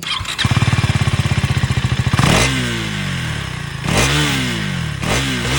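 KTM Duke 390 Gen 3's single-cylinder engine firing up about half a second in and idling with a fast, even pulse. It then gets short, light throttle blips about two, four and five seconds in, each rising in pitch and dropping back to idle, through the stock underbelly exhaust with its catalytic converter and no separate silencer.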